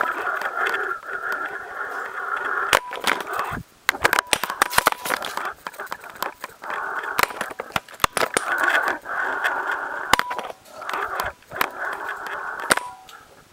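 A small camera rig being lowered down a narrow rock shaft, knocking and scraping against the rock walls as it spins, with many sharp clicks. Underneath runs a steady mid-pitched whine that cuts out briefly a few times.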